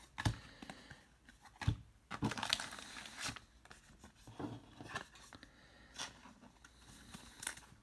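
Trading cards being handled: cards sliding and flicking against one another as they are thumbed through, and a thin plastic card sleeve rustling, heard as scattered soft rustles and light clicks.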